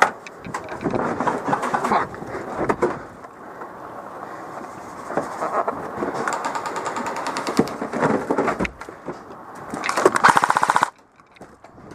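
Airsoft rifle firing bursts on full auto, a rapid even clatter of shots, with the longest and loudest burst about ten seconds in that stops abruptly.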